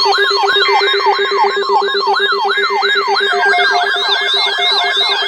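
Electronic alert siren sounding in rapid falling pitch sweeps, about three a second, over a steady lower tone. A second overlapping siren pattern joins about three and a half seconds in.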